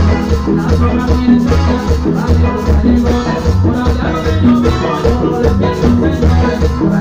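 A live Latin tropical dance band playing loud through a sound system, with a steady, pulsing bass beat and percussion.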